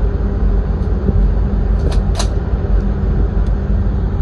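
Steady low rumble and hum of a ship's engine on deck, with two faint clicks about two seconds in.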